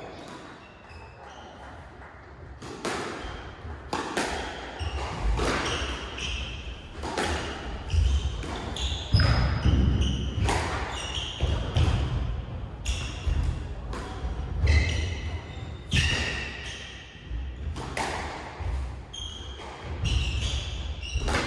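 Squash rally: the ball smacking off rackets and the walls in a string of sharp, echoing knocks roughly a second apart, with the players' shoes squeaking and thudding on the wooden court floor.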